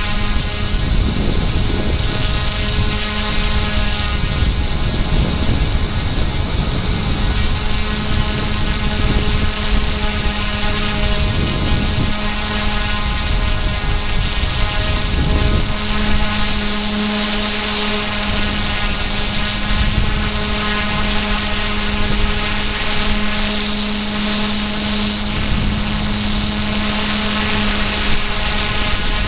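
Blade mCPX micro RC helicopter, with a brushless main motor and dual tail motors, running steadily in flight, heard loud and close from the camera mounted on its own frame: a constant high-pitched electric motor whine over rotor buzz.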